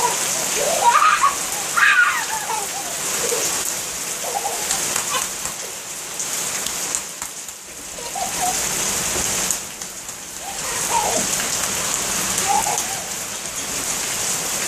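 Heavy rain pouring onto a paved driveway, a steady hiss that thins briefly twice.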